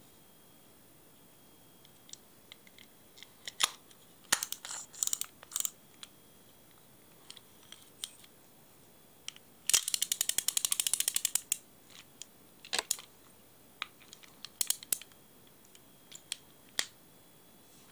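Intrepid Super Twin fixed-spool reel being handled, with scattered small clicks and knocks of its parts. About halfway through, its click ratchet runs for about two seconds as a fast, even train of clicks, the loudest sound.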